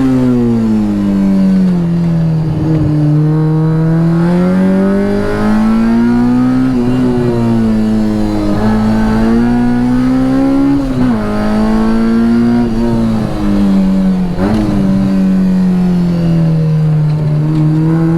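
K20-swapped Honda Integra Type R's four-cylinder engine being driven hard on track. The pitch climbs and drops again and again as the car accelerates, shifts and brakes, with short breaks at the gear changes about every three to four seconds.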